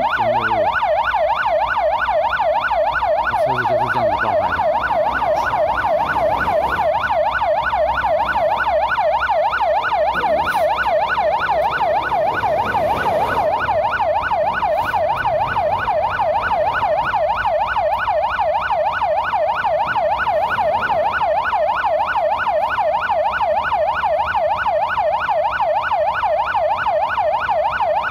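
Emergency vehicle siren sounding a fast, steady yelp, its pitch rising and falling about three times a second without a break, over the low rumble of freeway traffic.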